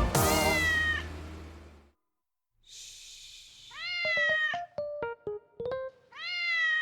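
A cat meowing: three drawn-out meows, one at the start, one about four seconds in and one near the end. A soft hiss comes just before the second meow, and a few short plucked keyboard notes sound between the second and third.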